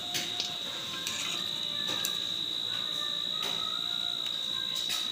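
A cricket trilling steadily on one high note, with a few light metallic clinks of a wire spider strainer against a steel kadai.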